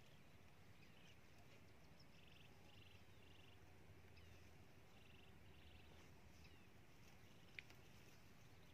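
Near silence: faint outdoor ambience with a steady low hum and faint short trilled animal calls, three in quick succession and then two more a little later. A single sharp click comes near the end.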